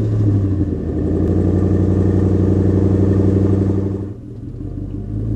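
Chevrolet Corvette C7 Stingray's V8 engine idling steadily, its level dipping briefly about four seconds in.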